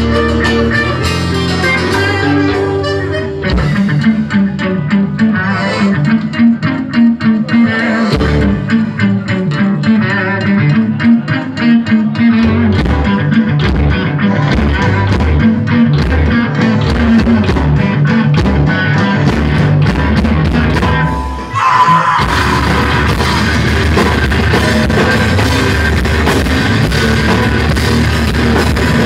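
A live rock band plays an instrumental passage led by guitar, with bass and drums. About three quarters of the way in it drops away for a moment, then comes back louder and fuller.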